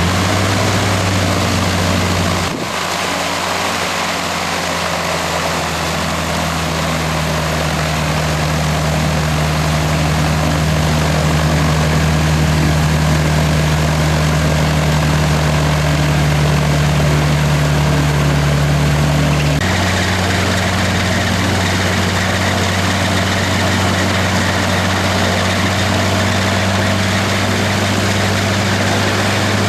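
Magni Gyro M21 Aurora gyroplane's Rotax 914 Turbo engine and pusher propeller running steadily on the ground. The engine note shifts to a new pitch about two and a half seconds in, and again about two-thirds of the way through.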